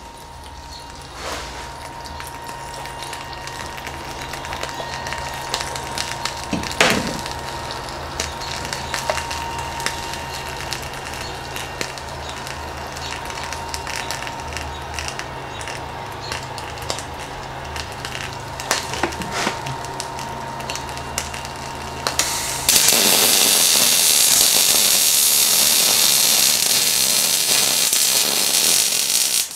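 MIG welder arc striking on a steel wagon axle about three quarters of the way in, then running as a loud, steady crackling hiss. Before it, a low hum with a faint steady tone and scattered ticks and crackles.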